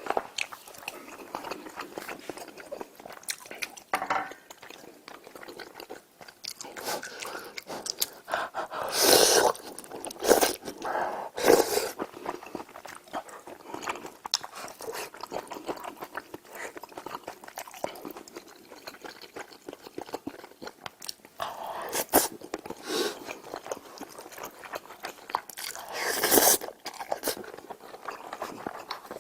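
Close-miked eating sounds: a person chewing and crunching food, with many small wet clicks and several louder bursts, the loudest about nine seconds in and again near the end.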